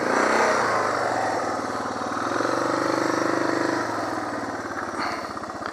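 Suzuki DR650SE's single-cylinder four-stroke engine running at low revs, with small throttle rises in the first half second and again for about a second and a half midway before it settles back.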